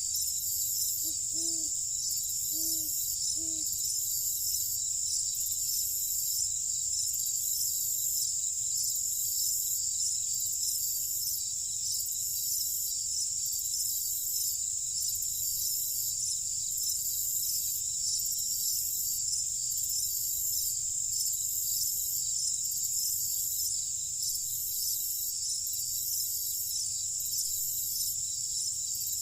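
Night insect chorus of crickets: a steady high-pitched trilling with a slow regular pulsing. A few faint, short, low calls sound about one to four seconds in.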